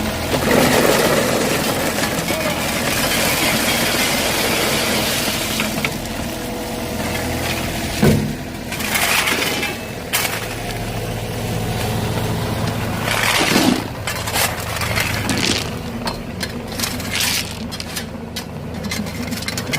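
A work machine's engine running steadily under loud crunching and clattering, with a sharp knock about eight seconds in and further rattling bouts after it.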